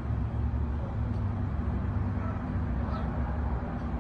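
Steady low mechanical hum with a rumble beneath it, unchanging throughout.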